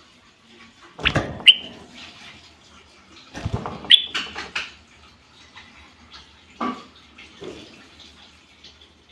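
Common bulbul giving short, loud whistled notes twice, about one and a half and four seconds in. Each comes amid a burst of rustling and thumping noise, with fainter noises later.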